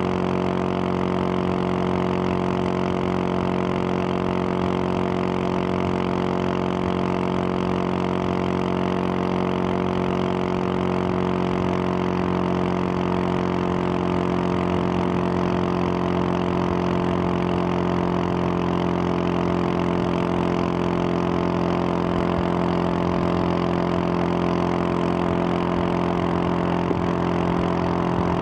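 2021 Husqvarna 701 Supermoto's single-cylinder engine, breathing through a Wings aftermarket exhaust, running at a steady highway cruise with its pitch held constant.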